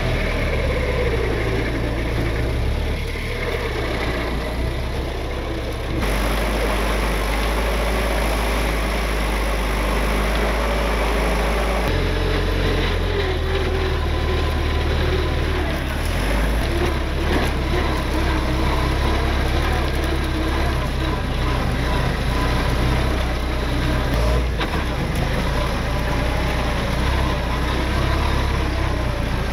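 A motor vehicle's engine running steadily with a low rumble, the sound shifting abruptly about six and twelve seconds in.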